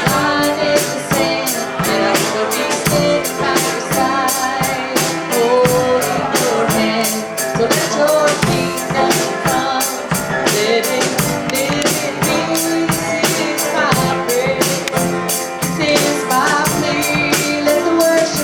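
Worship band playing an upbeat song with a steady drum kit beat, with voices singing over it.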